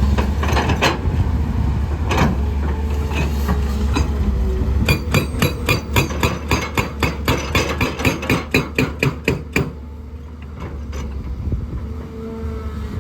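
Excavator-mounted hydraulic rock breaker hammering rock in a rapid, even run of about five blows a second for roughly five seconds, over the excavator's steady diesel engine hum. A few scattered knocks come before the run, and the engine is quieter once the hammering stops.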